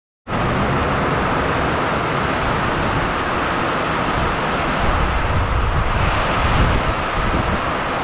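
Heavy rain pouring down in a steady hiss, with gusting wind buffeting the microphone as a low, uneven rumble that is strongest around the middle.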